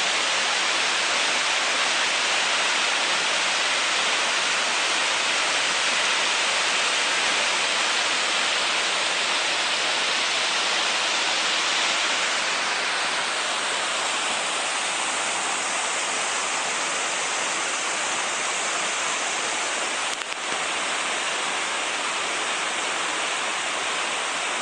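Mountain waterfall pouring steadily: a continuous rushing of falling water, changing slightly in tone about halfway through.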